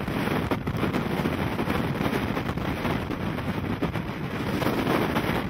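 Strong storm wind blowing across the microphone in uneven gusts, a rough, continuous rush of noise.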